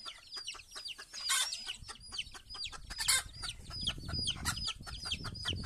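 Young chicks peeping steadily, a quick string of short high cheeps several a second, with a few brief scratchy noises and a low rumble in the second half.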